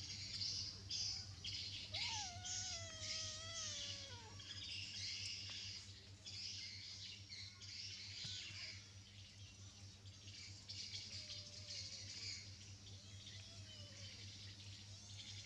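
Kitten mewing: one long falling mew about two seconds in, then a few fainter mews later, over constant high chirping and a steady low hum.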